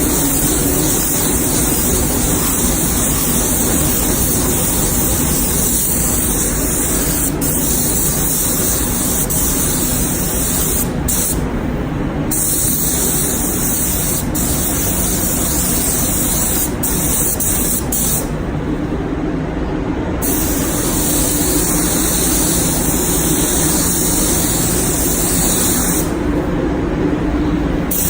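Compressed-air spray gun hissing as it sprays primer in long passes, the hiss stopping three times for a second or two as the trigger is released between passes. A steady low hum of booth or compressor machinery runs underneath throughout.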